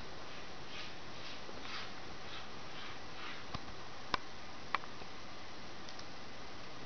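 Four-week-old kitten moving on a wooden floor: soft scuffling, then three sharp clicks about half a second apart, over a steady hiss.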